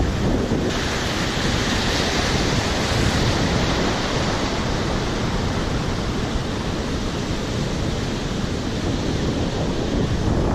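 Ocean surf breaking and foaming in over rocks and shallow reef: a steady, even rushing wash of water.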